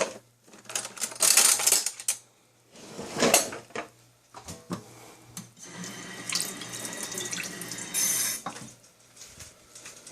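Kitchen tap water running in several short spells, the longest a few seconds near the end, with a few light knocks in between.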